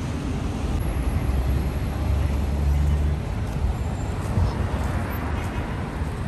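Road traffic: a vehicle's low engine rumble over steady street noise, swelling for a couple of seconds about a second in, with a short knock about four seconds in.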